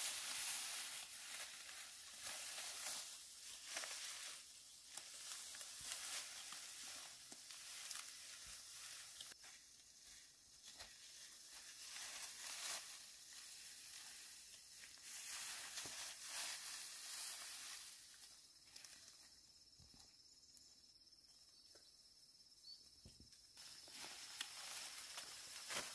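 Rice plants rustling and swishing as stalks are gathered and cut by hand, in irregular bursts that ease off for a few seconds and pick up again near the end.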